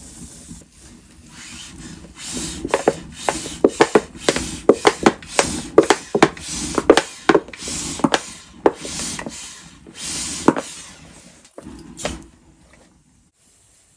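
Dry twigs and kindling crackling and popping as they catch fire in the open firebox of a small stainless-steel tent wood stove. The pops come thick and irregular for several seconds, then thin out and stop near the end.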